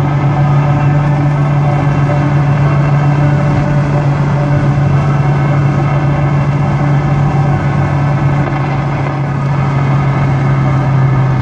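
Car AM radio playing static: a loud, steady hiss and crackle over a low hum, the atmospheric noise picked up from lightning.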